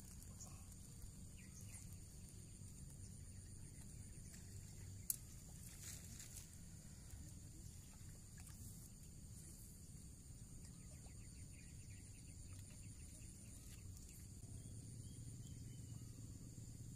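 Near silence: faint outdoor ambience of a steady high insect chirring over a low wind rumble, with one sharp click about five seconds in.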